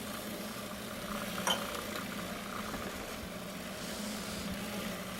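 Robot Coupe food processor motor running steadily, blending arugula pesto as olive oil is added. A single brief clink about a second and a half in.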